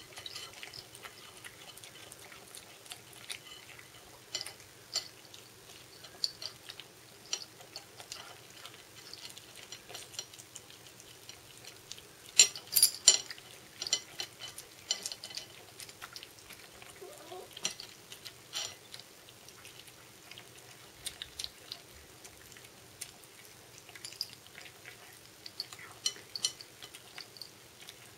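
Two cats eating soft smoked haddock fish cake from a plate: wet chewing and lip-smacking, heard as a scatter of small irregular clicks, with a louder run of clicks about halfway through.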